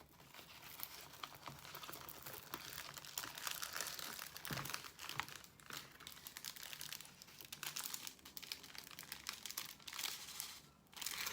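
Plastic packaging of a diamond painting kit crinkling and rustling as it is handled and unwrapped, a busy run of crackles and small clicks that eases off near the end.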